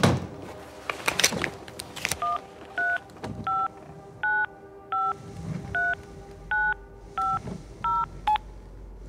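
Telephone number being dialed on a touch-tone keypad: about ten short two-tone beeps at a steady pace, each key a different pitch pair. They are preceded by a few clicks and knocks.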